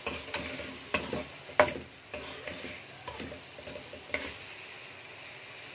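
Metal ladle scraping and knocking against a metal cooking pot as chicken and masala are stirred, over a steady sizzle of frying. About five sharp knocks in the first four seconds, the loudest about one and a half seconds in.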